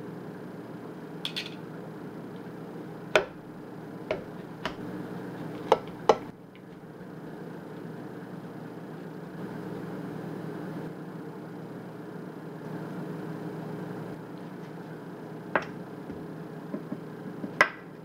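Metal fork and knife clinking sharply against a stainless steel mixing bowl while a sauce-coated brisket is slit and turned: several clinks in the first six seconds and two more near the end, over a steady low hum.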